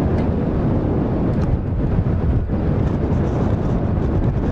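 Steady low rumble of jet airliners taxiing at idle, heard from a distance, mixed with wind buffeting the microphone.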